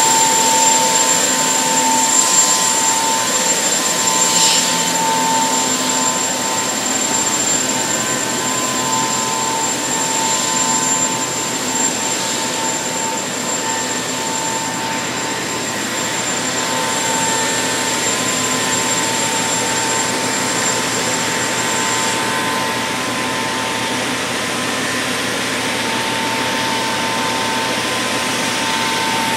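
Steady, loud drone of dry-dock industrial machinery, with a constant mid-pitched hum and a thin high whine that stops about three-quarters of the way through.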